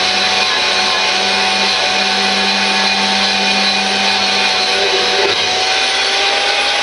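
Electric power tool running steadily as it strips paint off a metal pulley bracket; its tone shifts slightly about five seconds in.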